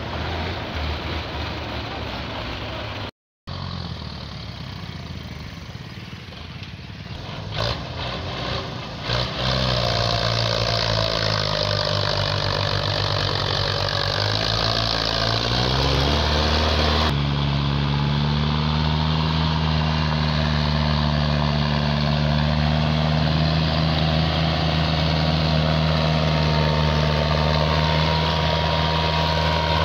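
Farm tractor's diesel engine running under load, hauling a trolley heaped with sugarcane. The engine note rises and falls for several seconds, then holds steady. The sound drops out briefly near the start.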